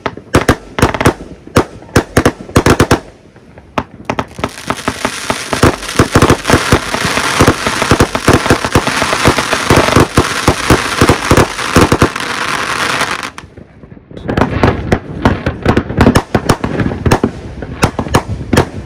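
Fireworks going off: a rapid string of sharp firecracker-like bangs, then after a short lull a dense hissing crackle lasting about nine seconds, which stops abruptly before another rapid string of bangs near the end.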